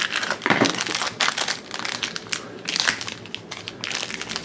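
Crackling and crinkling of a Shopkins Happy Places blind pack being opened by hand: the small cardboard box pulled apart and the crinkly foil bag inside torn open, in many quick irregular crackles.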